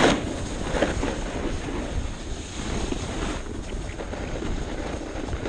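Wind rushing over the camera microphone and skis sliding over groomed snow while skiing downhill. It is a steady, rumbling rush that comes up suddenly at the start as the skier sets off.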